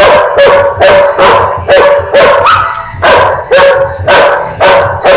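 A small terrier-type dog and a large black dog barking at each other face to face in a play fight: short, sharp barks in quick succession, about two a second.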